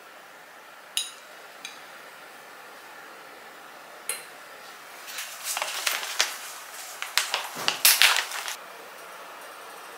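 A metal spoon clinks against glass three times, each with a short ringing note. From about five seconds in comes a run of loud crinkling and rustling from a paper coffee bag being handled, loudest near the end.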